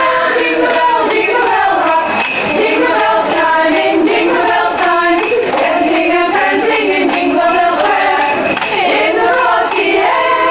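A women's vocal group singing in harmony, with a stick of sleigh bells jingling along.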